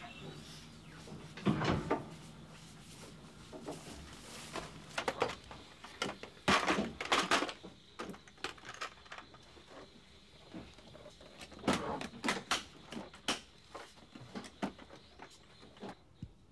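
Irregular knocks and clicks, often several in quick succession, over a faint steady background.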